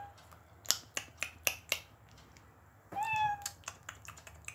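A run of five sharp clicks about a quarter second apart, then about three seconds in a short cat meow, slightly falling, followed by more clicks. The same pattern comes round about every three seconds, like a looped effect sound from an animated tiger face filter.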